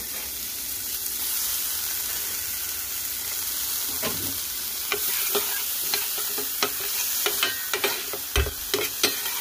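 Diced bell peppers and green onions sizzling in a hot stainless steel skillet, a steady hiss. From about halfway on, a run of sharp ticks and taps joins the sizzle.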